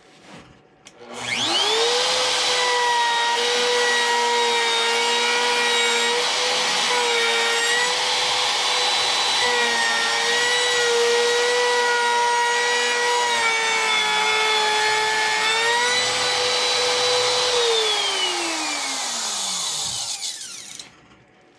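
Electric wood router switched on about a second in, spinning up quickly to a steady high whine and cutting into the guitar body's wood, its pitch dipping slightly under load. Near the end it is switched off and the whine slides down as the bit coasts to a stop.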